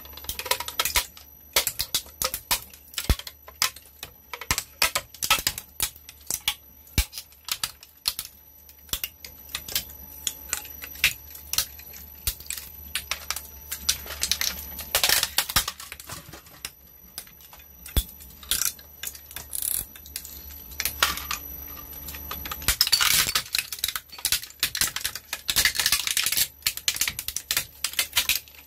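Twin-shaft shredder's hooked steel cutters crunching hard plastic toys: a rapid, irregular crackle of snapping and cracking plastic over the steady low hum of the machine. The snapping is densest about fifteen seconds in and over the last six seconds.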